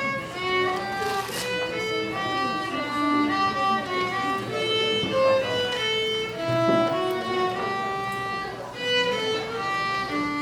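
Solo violin playing a slow melody of held, bowed notes, one note after another.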